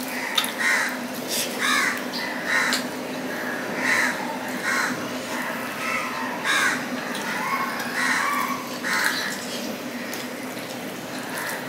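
Short harsh bird calls, repeated about once a second, over the soft wet squishing and clicking of rice and fish curry being mixed by hand on a steel plate.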